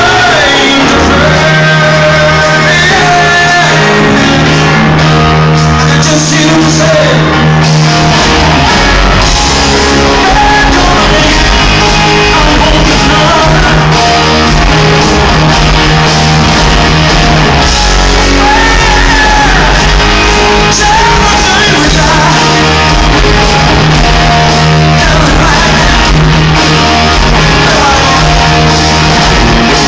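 Hard rock band playing live, a male singer's vocals over electric guitars and a steady bass, picked up loud on a phone's microphone in the audience.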